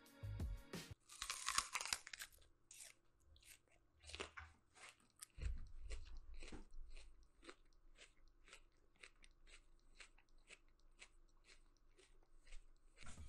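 A person biting into something crunchy about a second in, then chewing it steadily, about two to three chews a second, close to the microphone.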